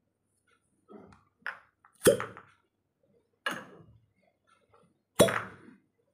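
Glass cupping cups pulled off the skin of the back, each releasing its suction with a sharp pop, about five in all, the loudest two about two and five seconds in, with light clinks of glass as the cups touch one another.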